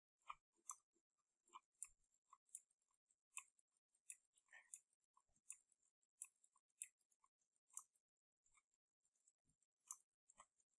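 Near silence: room tone with faint, irregular short clicks about once or twice a second.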